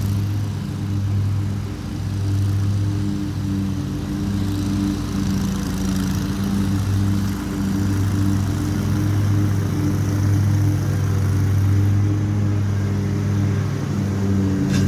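Lawn mower engine running steadily, its pitch holding even with only slight wavering.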